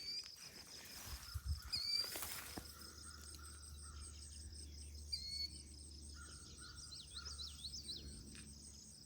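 Summer morning outdoor ambience: insects trill steadily and high-pitched while birds chirp in short repeated calls, with a quick run of bird notes near the end.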